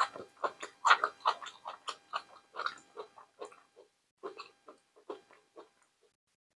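Close-miked chewing of a mouthful of brined tripe (işkembe tuzlama): a quick, irregular run of mouth sounds, loudest in the first second or so, growing sparser after about four seconds.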